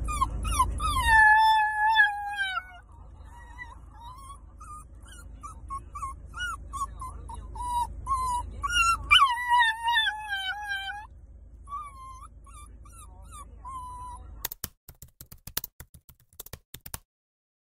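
Chihuahua–miniature pinscher mix puppy whining and howling: two long falling cries with short whimpers between, the distress of a dog with separation anxiety left apart from its owner.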